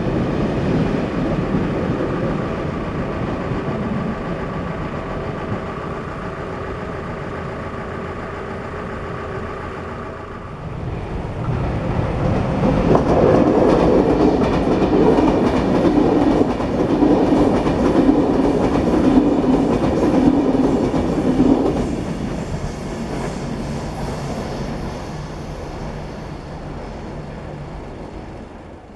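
Train passing over a railway level crossing, wheels clattering over the rails; it is loudest from about 11 to 22 seconds in, then fades away.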